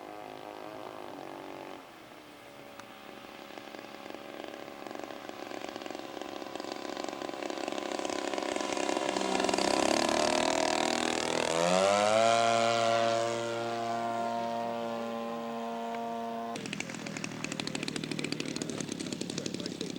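Engine of a radio-control scale model airplane flying past, growing louder and then dropping in pitch as it passes. It then drones steadily, and near the end gives way abruptly to a rougher, rapidly pulsing small engine close by.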